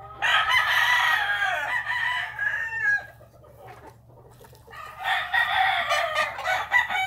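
Gamecock roosters crowing: two long crows, the first starting just after the start and the second about five seconds in.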